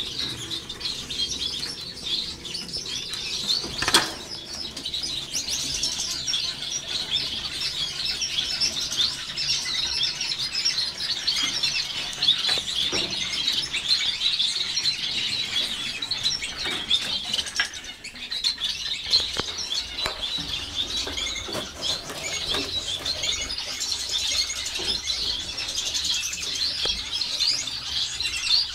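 A flock of caged finches, Gouldian finches among them, twittering and chirping without pause, many short high calls overlapping. A single sharp knock about four seconds in.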